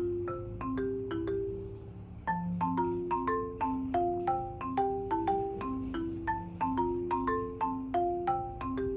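Background music played on marimba or xylophone, with quick struck notes over a steady bass line. It thins out briefly about two seconds in, then picks up again.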